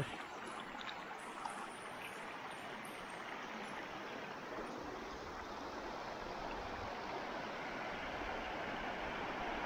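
Shallow mountain stream running over stones: a steady rush and burble of water that grows slightly louder toward the end.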